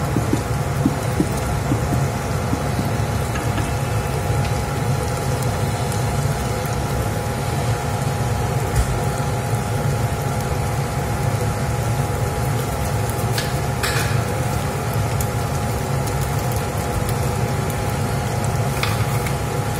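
Garlic, onion and green chilli frying in oil in a stainless steel pot, giving a steady crackling sizzle over a continuous low hum.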